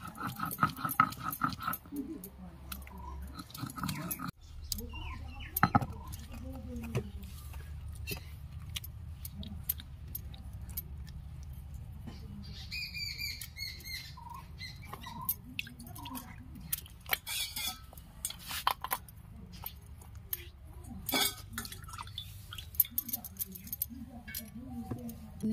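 Stone roller grinding wet ginger-garlic paste on a flat grinding stone (sil-batta): rough repeated scraping strokes for the first four seconds or so, then scattered clicks and scrapes as the paste is gathered off the stone and clinks of a steel bowl. Birds chirp now and then in the background.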